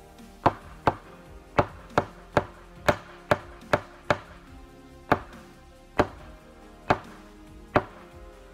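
Steel tip of a flat-head screwdriver tapping on a hard, cured epoxy coating: a sharp click with each strike, about every half second at first, then more slowly.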